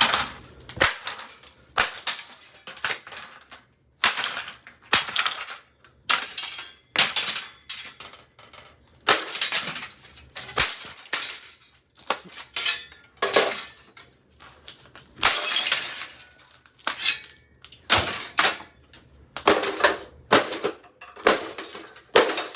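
Hamilton Beach microwave oven being smashed apart: a long run of sharp blows, about one a second, with glass breaking and parts clattering.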